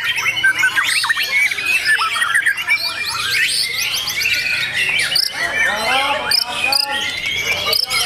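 White-rumped shamas singing together in contest cages: a dense, unbroken stream of quick whistles, rapid trills and harsh squawking calls. A person's voice calls out around the middle.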